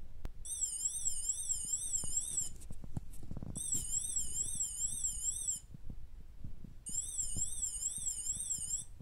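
LEGO 9V sound siren brick (4774c01) sounding a high, warbling police-style siren in three bursts of about two seconds each, with short gaps between. Its pitch swings up and down about two to three times a second.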